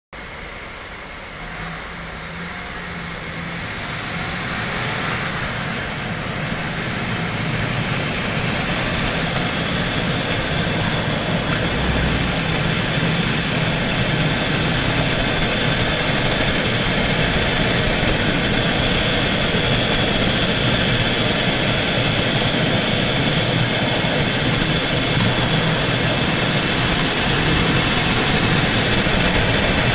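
Tyre and road noise heard from inside the wheel arch of a Mitsubishi Chariot as it gathers speed, then running steadily, with the upper-middle range boosted. From about halfway through a rustling, hissing scrape (shara-shara, shaa-shaa) rides on top, an abnormal noise that the owner suspects is a dragging brake.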